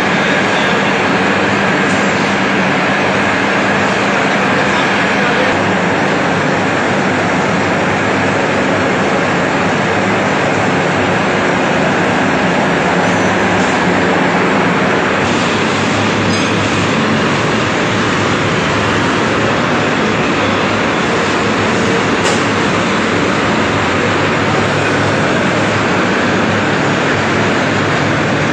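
Steady, loud din of a tractor assembly plant's floor: machinery running with a constant hum and a few steady tones, no single sound standing out.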